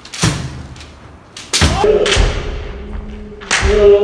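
Bamboo shinai striking kendo armour together with stamping footwork on a wooden floor: three sharp hits about a second and a half apart. After the second hit comes a long held shout, a kiai.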